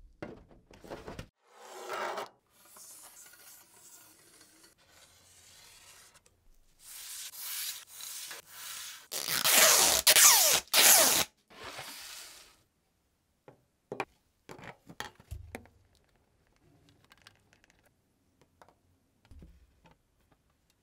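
Protective film being peeled off an acrylic sheet: a long rasping rip, loudest in the middle, in several pulls. Then a few light clicks and taps as the acrylic pieces are handled.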